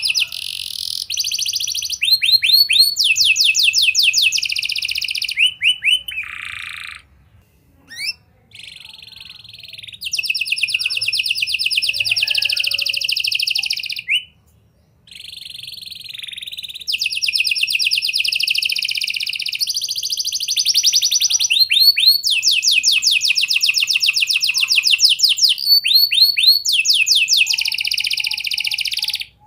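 Domestic canary singing a long song of rapid trills and rolls, phrase after phrase, with short breaks about seven and fourteen seconds in; it cuts off suddenly near the end.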